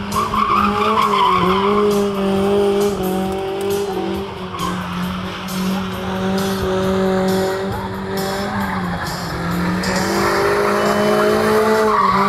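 Toyota Corolla AE86 drifting: the engine is held high in the revs, its pitch dipping and rising several times as the throttle is worked. It runs over the hiss and squeal of the rear tyres spinning and sliding on asphalt, heaviest near the start and near the end.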